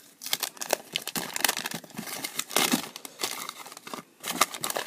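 Wax paper wrapper of a 1988 Topps football wax pack being crinkled and torn open by hand: dense, irregular crackling, with a short lull about four seconds in.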